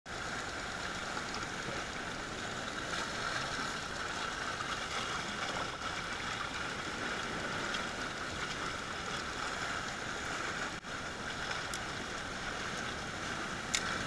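Steady rush of sea surf on a rocky shore, with a brief drop in level about eleven seconds in and a single sharp click near the end.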